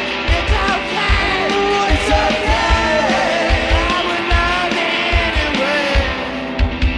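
Loud garage rock played by a band: a steady kick-drum beat, electric guitars and a singer's voice.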